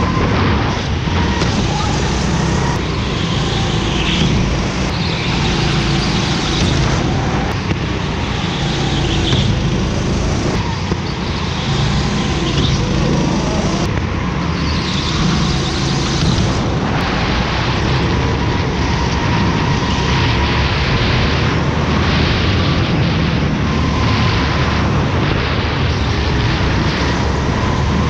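Go-kart running at speed, heard close up from an onboard camera: a steady engine drone whose pitch rises and falls with the throttle through the corners.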